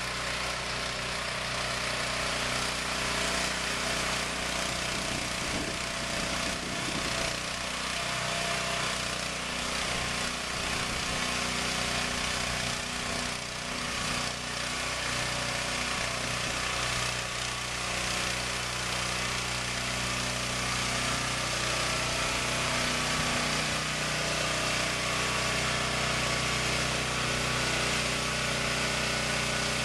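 Container delivery truck's engine running at a steady speed, driving the truck's hydraulic lift frame as it hoists a portable storage container onto the truck.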